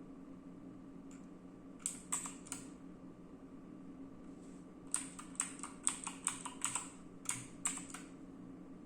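Dazz Eclipse mechanical keyboard with clicky Gateron Blue switches, keys pressed one at a time. There are three clicks about two seconds in, then a quicker run of about ten near the end.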